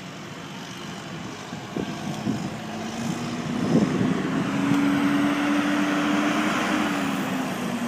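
A motor vehicle passing by on the road: engine and tyre noise build up, peak, and the engine tone drops in pitch as it goes past near the end.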